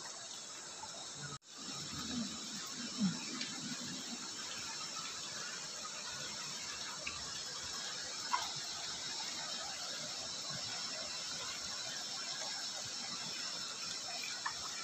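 Steady high chirring of insects over the running water of a shallow rocky river. The sound cuts out briefly about a second and a half in.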